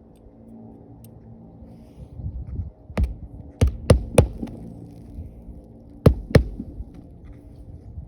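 Six sharp knocks: four in quick succession about three to four seconds in, then two more about six seconds in, over a low steady rumble.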